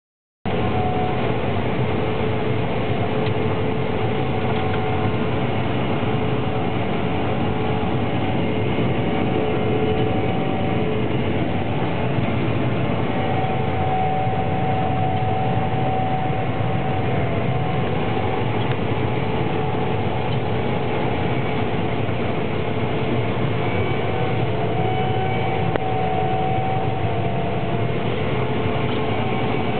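Gleaner R62 combine harvesting soybeans, heard from inside the cab: a steady drone of the engine and threshing machinery, with whining tones that fade in and out.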